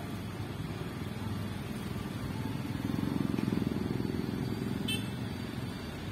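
Road vehicles passing at a level crossing, a low engine rumble that swells as one goes by about three seconds in, with a brief sharp tick about five seconds in.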